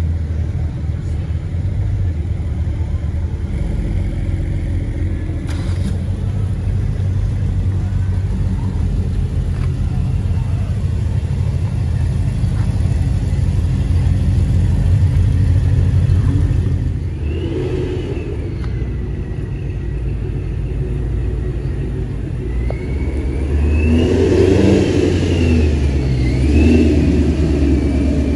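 Engines of several performance cars rumbling steadily as they drive slowly past one after another. Near the end the sound grows louder with revving as a Mustang GT's 5.0-litre V8 passes.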